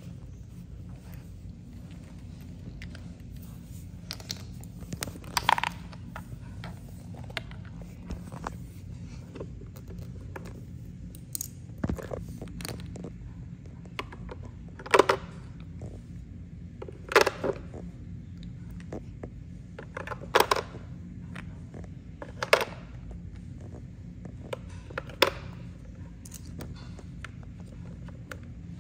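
Toy vending machine being loaded: small plastic clicks and clacks as tiny toy drink cans are dropped into its top compartment, a sharp clack every two or three seconds in the second half, over a steady low hum.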